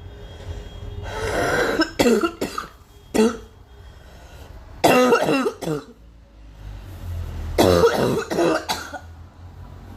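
A girl coughing in repeated fits: three clusters of coughs, each a few sharp coughs in quick succession, with pauses of a second or two between the fits.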